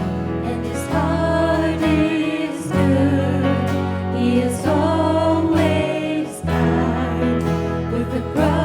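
Music: a song with singing over sustained, held bass and chord notes.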